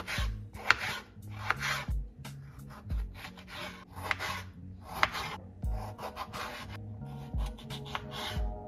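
A kitchen knife slicing through a tomato onto a wooden cutting board: a short rasping stroke about once a second, with a few sharp taps of the blade on the board. Calm hip-hop background music with a steady beat plays underneath.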